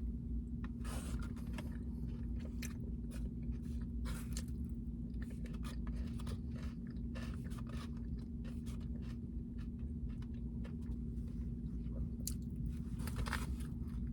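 Close-up chewing of a taco, with many small wet mouth clicks and smacks, over a steady low hum.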